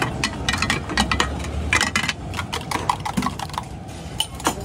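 Rapid metallic clinking of a spoon beating eggs in a steel tumbler, thinning to scattered clinks after about two seconds, with one sharp clink near the end.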